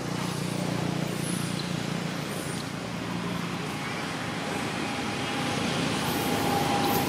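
Steady low rumble and hiss of background noise, with a few faint high chirps.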